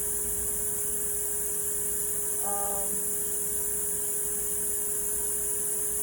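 A steady electrical hum with a constant high hiss, and a brief faint voice about two and a half seconds in.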